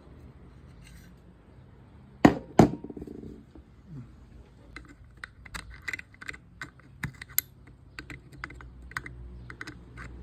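Two sharp knocks, then a run of light, irregular clicks and taps of small fishing-reel parts and tools being handled on a work surface.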